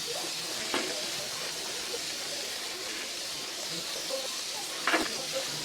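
Steady hiss of a water spray washing through the evaporator fins of a window-type air conditioner, with a couple of brief knocks, the louder one near the end.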